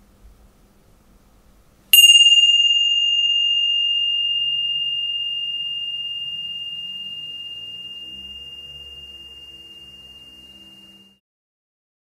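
A single small bell struck once about two seconds in, ringing one high tone with brief higher overtones and fading slowly for about nine seconds before it is cut off abruptly.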